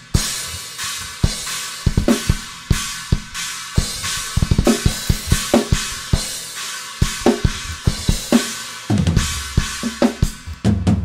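Raw, unmixed multitrack recording of an acoustic drum kit playing a metal part: kick, snare and crash cymbal hits over a constant cymbal wash. There are two fast flurries of kick drum strokes, one about halfway through and one near the end.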